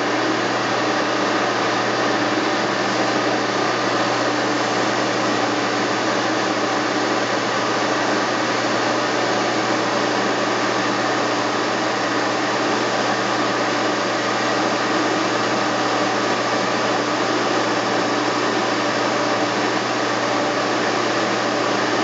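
Milling machine running steadily, a constant motor whir and hum with no change in level.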